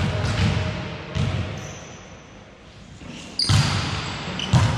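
Volleyball being hit and bouncing during play: several dull thuds in the first second and a half, a lull, then two louder hits about three and a half and four and a half seconds in, with thin high squeaks after the later hits.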